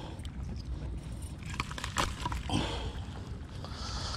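Steady low rumble of wind on the microphone, with a few short crunches and knocks of shoes on gravel and rock.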